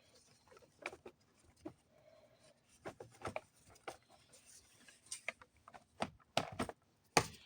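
Scattered small clicks, taps and rubbing of parts and hand tools being handled, with a few sharper knocks about six to seven seconds in.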